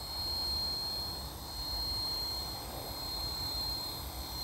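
Align T-Rex 450 LP Dominator electric RC helicopter hovering: a steady high-pitched whine from its brushless motor and rotor head, over a low rumble.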